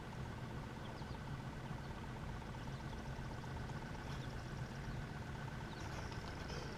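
Small fishing boat's motor running with a steady low hum, and a few faint high chirps over it.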